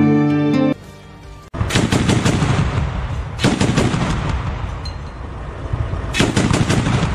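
Turret gun of a BTR-82A armoured personnel carrier firing three short rapid bursts, about 1.5 s in, near the middle and near the end, with the vehicle's engine rumbling steadily between them as it drives. A few notes of guitar music are heard before a cut in the first second.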